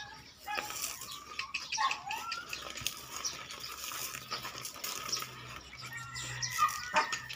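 Water buffalo hooves and footsteps crunching on gravel, with birds chirping throughout.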